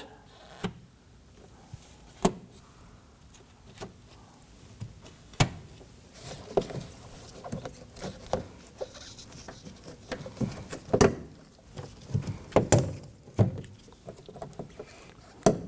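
Plastic twist-dial fasteners on the back of a car door panel's handle cover being turned by hand and worked loose: scattered sharp plastic clicks, several seconds apart, with light rubbing and handling noise between them.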